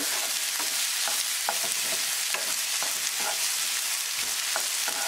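Diced red onion sizzling in hot oil in a frying pan, stirred with a wooden spatula that scrapes across the pan in short strokes at irregular intervals.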